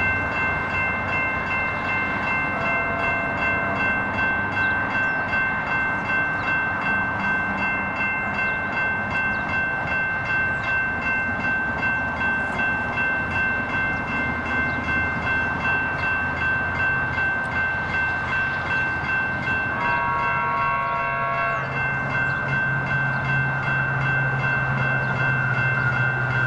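Level crossing warning bell ringing over and over in an even pulse while the crossing is activated. Near the end a train horn sounds once for about a second and a half, and a low rumble builds as a train approaches.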